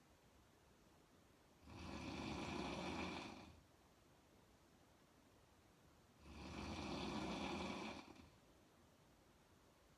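A woman snoring with her mouth open: two long snores, each about two seconds, about four and a half seconds apart, with quiet pauses between breaths.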